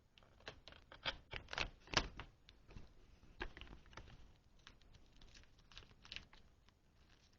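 Irregular light clicks and taps of small hard objects being handled on a work surface, several a second, loudest in the first two seconds and sparser after.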